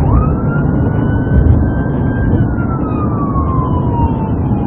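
Police car siren on a slow wail, rising quickly at the start, gliding slowly up and then down in pitch, over the loud low rumble of the pursuing car driving at speed.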